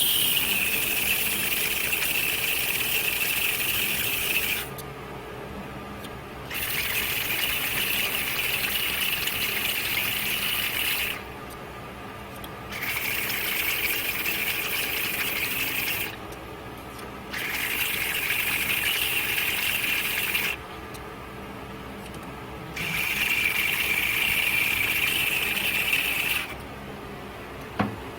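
Five long hissing blasts from a pressurised nozzle, each lasting three to four seconds, with short pauses between.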